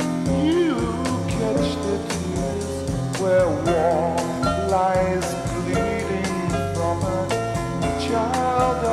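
Background music: a song with steady band accompaniment, its melody line wavering with a wide vibrato a few seconds in.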